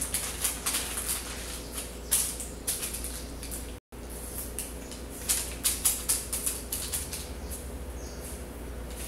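Paper receipts crinkling and rustling in a run of short crackles as hands press and smooth them onto a sticky, honey-coated bare chest, over a steady low hum. The sound drops out for an instant near the middle.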